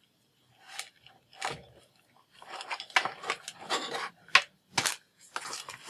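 Small plastic cord-organizer clip and USB cable being handled and the cable pressed into the clip: scattered light clicks and rustles, with two sharper clicks near the end.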